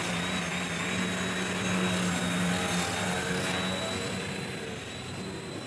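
Electric motor and propeller of a foam aerobatic RC model plane running with a steady buzzing drone and a thin high whine over it, echoing in a large hall. The drone fades a little near the end.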